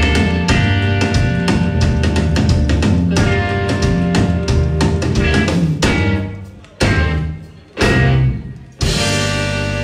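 A band playing, with drum kit, bass and guitar, on a steady groove. About six seconds in it breaks into three full-band hits roughly a second apart, each left to ring out and fade, before the band comes back in near the end.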